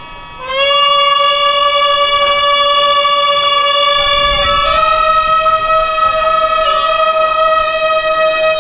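Gagaku wind music: a hichiriki double-reed pipe slides up into a long held note about half a second in, then steps up to a higher held note just before five seconds. Fainter steady tones sound beneath it.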